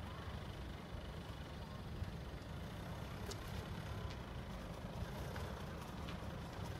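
A Kia Sportage SUV driving slowly across a paved lot: a low, steady engine rumble, with a few faint ticks in the middle.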